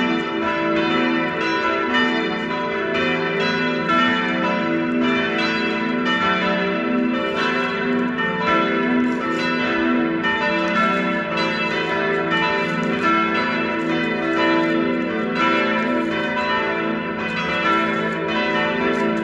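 Full peal of four swinging church bells ringing together, their strikes overlapping continuously and steadily without pause.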